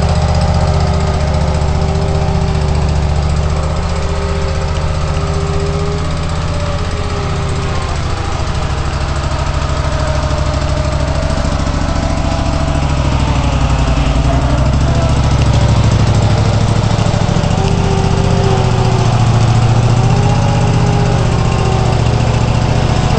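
Toro Dingo compact tracked utility loader's engine running steadily, with whining tones that rise and fall in pitch as the bucket arm and tracks are worked.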